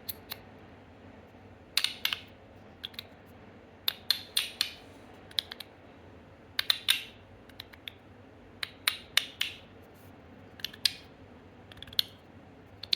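Stainless steel LINO EDC YULI magnetic fidget slider being slid back and forth by hand, its plates snapping into place with sharp metallic clicks. The clicks come every second or two, often in quick pairs or short clusters.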